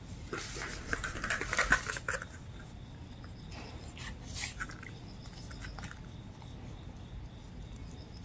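Cotton rope strings rustling and clicking as hands pull them out of a tangle, busiest in the first two seconds, with a few softer rustles around four seconds in.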